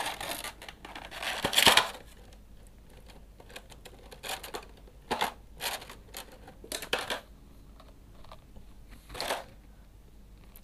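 Clear plastic blister tray being handled as a small action figure is pulled out of it: plastic crinkling and rustling for the first two seconds, then a scattering of short clicks and rustles.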